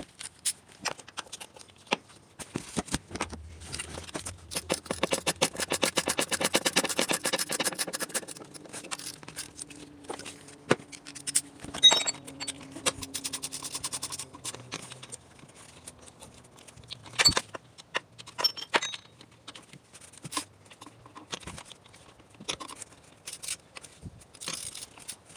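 Ratchet wrench clicking in fast runs while the new alternator's mounting bolts are tightened, among knocks and clinks of tools on metal. There is one sharp clank about twelve seconds in.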